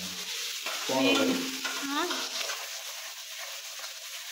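Food sizzling in hot oil in a cooking pan while being stirred: a steady frying hiss, with a short pitched sound about a second in.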